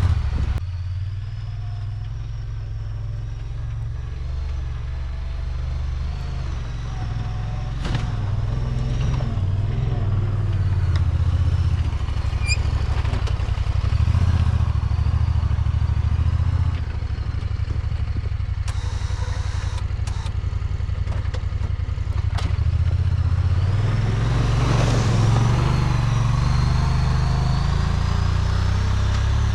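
Plow truck's engine running under load as it pushes wet snow down the driveway, its note rising and easing. A few sharp knocks come through along the way.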